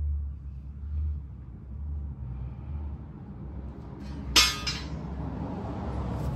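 A single sharp metallic clink with a brief ring about four seconds in, over a low steady hum.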